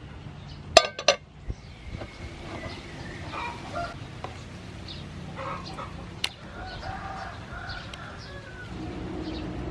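Chickens clucking, with short bird chirps, broken by sharp metal clacks of cooking tongs against the pan: two about a second in and one more after about six seconds.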